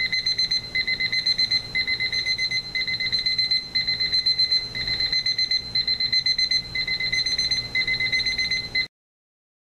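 Seiko QHE114 battery alarm clock's electronic alarm beeping: bursts of rapid high-pitched beeps repeating about once a second. It stops suddenly near the end.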